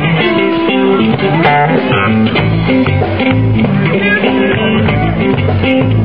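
Live R&B-soul band playing, with electric guitar to the fore over a bass line.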